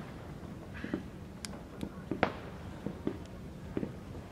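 Distant aerial fireworks going off: a scatter of sharp bangs and small pops at irregular intervals, with one louder bang about two seconds in.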